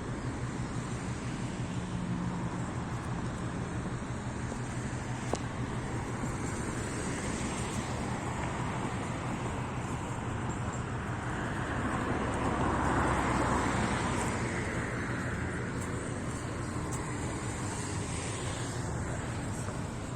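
Steady traffic noise over a low, even engine hum, with a vehicle passing that swells and fades about two-thirds of the way through.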